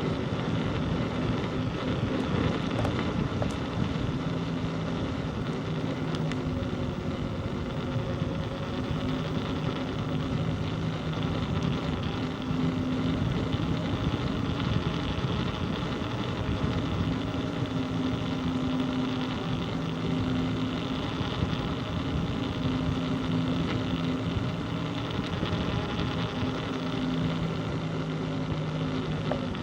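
An engine running steadily, a low droning hum that swells and eases slightly, over a background of wind and road noise.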